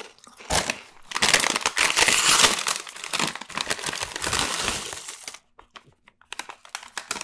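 Crinkly potato-chip bag rustling as chips are shaken out of it onto a pile on the tabletop: a dense crackling that starts about a second in and lasts about four seconds, then a few light clicks of chips being handled.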